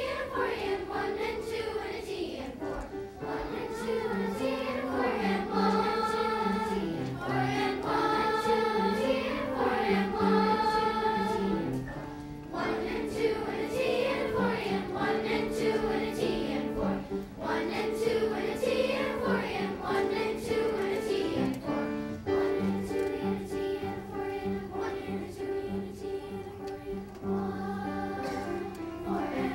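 Fifth-grade children's chorus singing.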